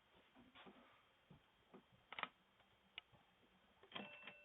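Near silence from a doorbell camera's microphone, with a few faint clicks and a faint steady tone starting near the end.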